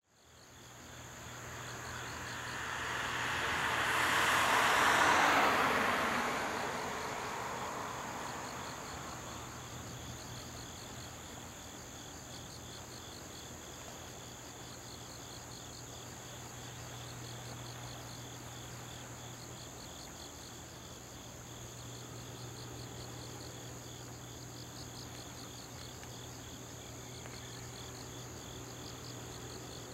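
Insects chirping in a steady, evenly pulsing trill over a low steady hum. A rushing noise swells to its loudest about five seconds in and fades away over the next few seconds.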